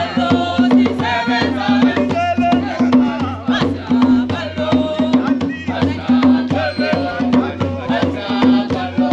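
Live drum-and-song performance: several hand drums beaten in a fast, steady rhythm under group singing.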